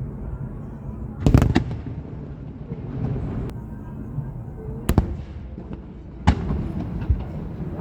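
Aerial fireworks shells bursting, with sharp bangs: a quick cluster about a second and a half in, then single bursts about five, six and seven seconds in.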